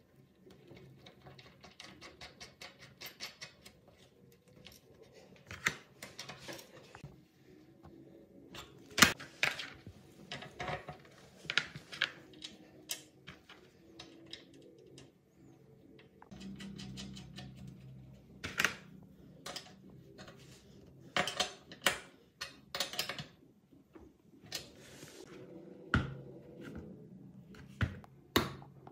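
Workshop handling sounds while mounting feet are fitted to a small gasoline generator: metal clinks, knocks and taps as parts and fasteners are handled. A quick run of clicks comes a couple of seconds in.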